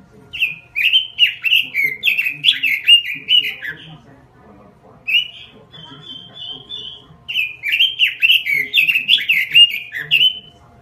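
Pekin robin (red-billed leiothrix) singing: two rapid warbling phrases of about three seconds each, with a short run of repeated notes in the pause between them.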